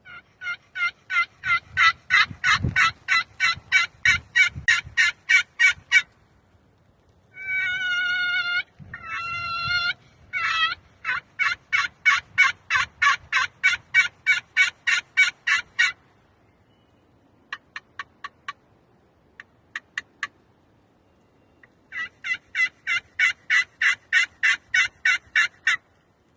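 Turkey yelping: three long runs of rapid, evenly paced yelps, about four to five a second. Between the first two runs come a few drawn-out calls, and a handful of short clicks fall between the second and third.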